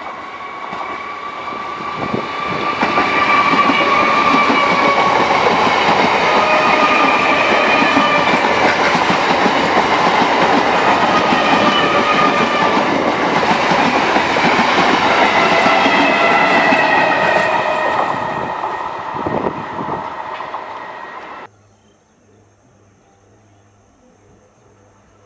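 Green-and-cream EMU suburban electric train passing close by at speed, its coaches rattling and its wheels clattering over the rails, with high wavering tones above the rumble. The noise builds over the first few seconds, holds loud, then cuts off suddenly about three-quarters of the way through, leaving only a faint steady background.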